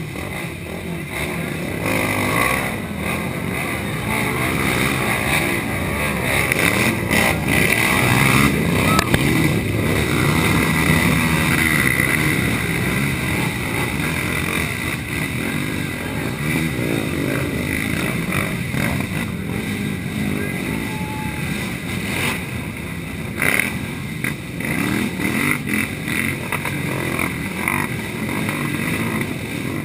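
Racing quad (ATV) engines revving up and down as the quads churn through a mud pit, with the voices of a watching crowd around them.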